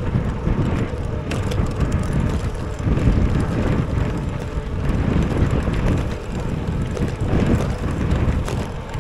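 Wind buffeting the microphone of a camera riding along on a moving bicycle, a steady low rush mixed with the noise of the ride.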